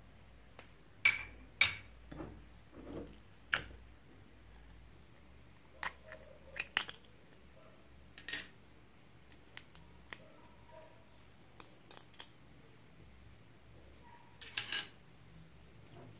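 Small plastic slime containers clicking and knocking against each other and a glass bowl as they are handled and opened. Scattered sharp clicks, about a dozen, the loudest two close together about a second in and a short cluster near the end.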